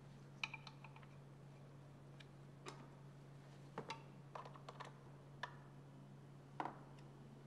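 Scattered light clicks and taps of hard plastic parts as a black plastic air intake housing is set in place and screwed down, over a low steady hum.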